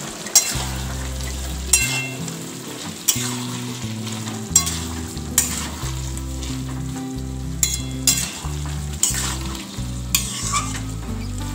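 A metal spatula stirring a thick vegetable-and-prawn curry in an aluminium kadai, the food frying in the pan, with a sharp scrape or knock against the pan's side about once a second.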